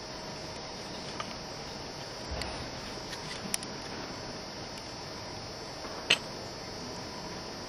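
Steady background hiss with a faint high whine, broken by a few small clicks, the sharpest about six seconds in.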